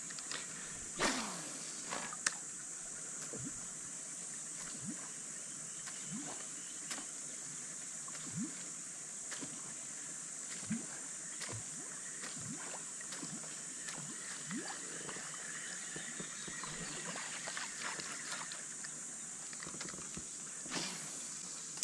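Steady high-pitched insect buzz from the surrounding forest, with many scattered short clicks and brief rising chirps over it.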